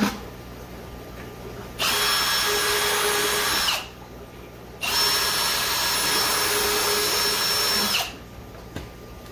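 Cordless drill with a 7/32-inch bit boring holes through the wall of a plastic 5-gallon bucket: two steady runs of the motor, about two seconds and then about three seconds long, with a short pause between.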